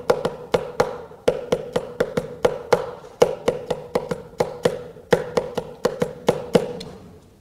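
Fingers tapping out the rhythm of a well-known song on a wooden lectern: a long run of sharp knocks in uneven groups with short pauses, each with a hollow ring, stopping shortly before the end.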